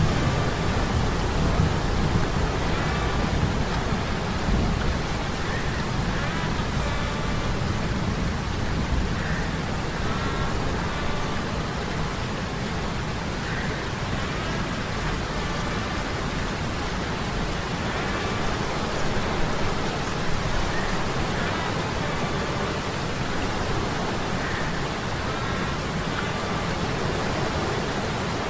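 Ambient mix of a low hum from metal gears under a steady rush of rain and sea-storm noise, with faint short creaking tones every few seconds.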